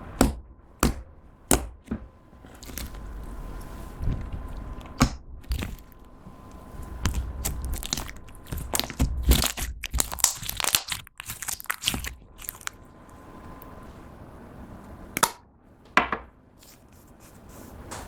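Clear slime being squished and stretched by hand, giving off sharp wet pops and clicks, with a dense run of crackling around the middle.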